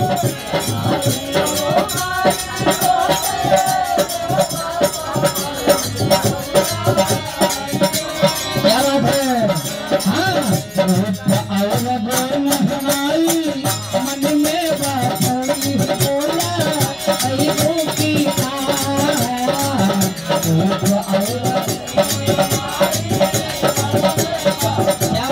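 Hindu devotional bhajan sung live by a seated group, a singing voice over steady, rhythmic hand percussion.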